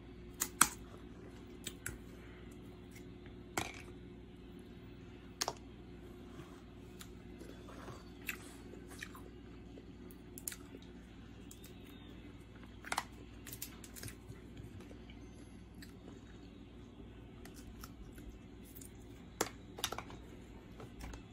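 Crab legs being eaten: chewing, with scattered sharp cracks and clicks of the shells being broken by hand.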